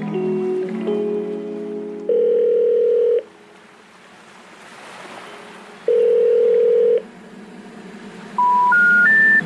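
Background music that stops about two seconds in. It gives way to two steady one-second telephone tones a few seconds apart. Near the end come three short beeps stepping up in pitch, the pattern of a telephone network's special information tone.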